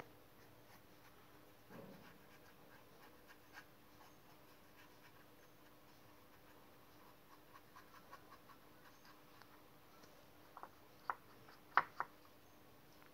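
Faint scratching of a paintbrush dabbing and spreading thick white paint over a small pot, over a faint steady hum. A few sharper light clicks come near the end.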